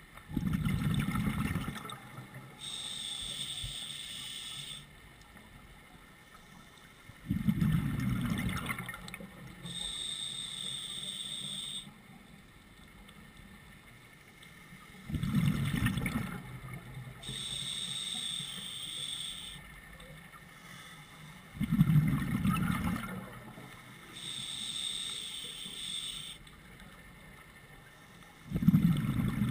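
A scuba diver breathing through a regulator underwater: a rush of exhaled bubbles about every seven seconds, five times in all, each followed by a high, steady hiss as the diver breathes in through the regulator.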